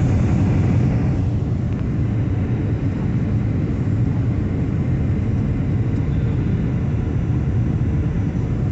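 Steady cabin noise of a Boeing 757-300 descending on approach, a low rumble of engines and airflow heard from inside the cabin. A hiss in the higher range eases after the first second.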